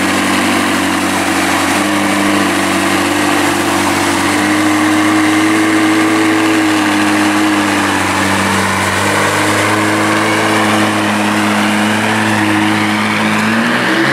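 McLaren 675LT's twin-turbo 3.8-litre V8 idling, its pitch wavering slightly, then rising near the end as the car pulls away.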